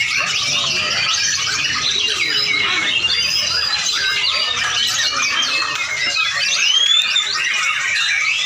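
Lovebird chattering without a break: a dense, steady run of high chirps, squeaks and quick rising and falling glides.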